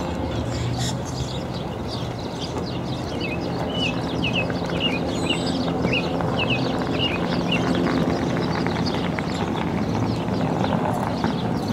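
Steady low outdoor hum, with a small bird chirping a run of short notes, about two a second, from about three and a half to eight seconds in.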